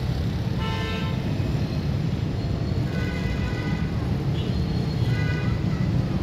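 Diesel locomotive horn sounding three blasts, a short one and then two of about a second each, each made of several tones at once. They sit over a steady low rumble, which is the loudest sound.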